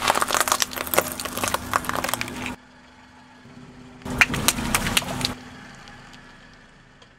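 A car tyre crushes brittle red-and-white ceramic pieces against asphalt: a dense crunching and crackling of shards that stops suddenly about two and a half seconds in. After a short quiet, there is a second, shorter burst of crackling and snaps about four seconds in, as the tyre rolls onto a row of water balloons.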